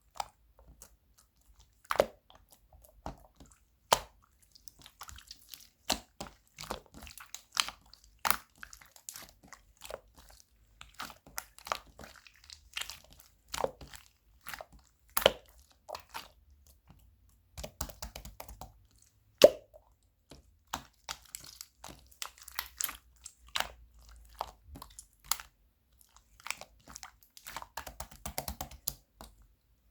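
Slime being squeezed and poked by hand: irregular sticky clicks, pops and crackles, with a few sharper snaps standing out.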